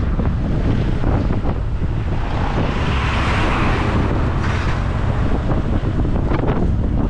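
Heavy wind buffeting on the microphone of a moving motorcycle, with a dense, steady rumble. A broad rush of noise swells and fades in the middle.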